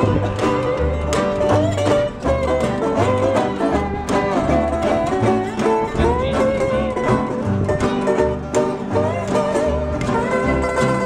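Acoustic string band playing an old-time tune: fiddle and a lap-played resonator guitar with a slide over strummed acoustic guitars and an upright bass. The bass keeps a steady, even pulse of low notes.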